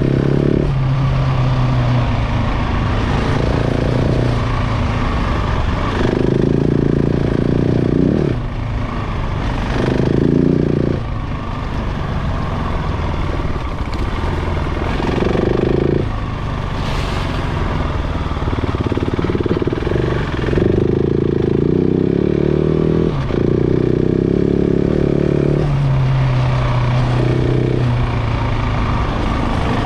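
A KTM 690 Enduro's single-cylinder engine being ridden, the throttle opened and closed again and again so its note repeatedly rises, holds and drops through the gears.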